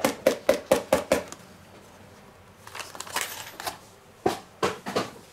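Paper bag of powdered sugar shaken and tapped over a stainless-steel mixing bowl to empty it: a quick run of taps, about five a second, that stops after a second or so. Then some paper rustling and a few single knocks near the end.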